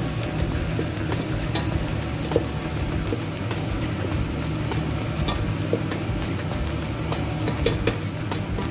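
Diced onions with a cinnamon stick and bay leaves sizzling in oil in a stainless steel pot, stirred with a spatula that makes scattered clicks and scrapes against the pot.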